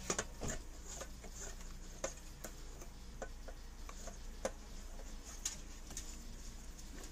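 Scattered light clicks and taps, irregular and quiet, from small plastic parts being handled as a new miniature water pump and its hose are fitted inside an electric hot-water pot.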